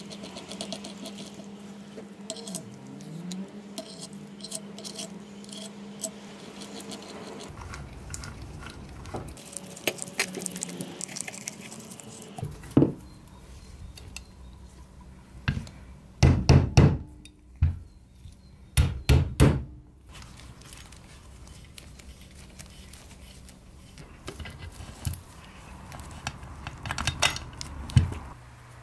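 Sharp metal clinks and knocks as the parts of a hand drill's gear housing are handled and fitted back together. They come in clusters, the loudest a little past the middle and again near the end.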